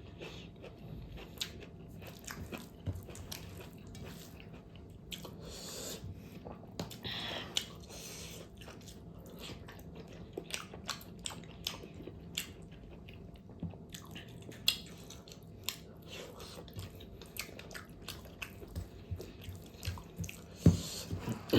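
Close-up mouth sounds of a person biting and chewing fatty pork: a run of wet smacks and sharp clicks with short hissy stretches, and a stronger smack near the end.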